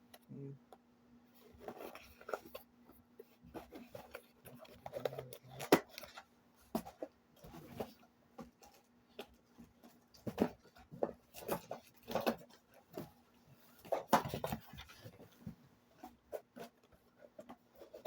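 Packaging and box contents being handled during an unboxing: irregular rustling with light knocks and clicks, over a faint steady hum.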